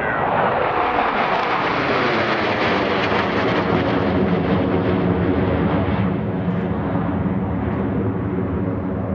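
Jet engines of four F-16 Fighting Falcons flying past in diamond formation: a loud roar whose pitch falls over the first couple of seconds as they pass, settling into a steady, lower rumble.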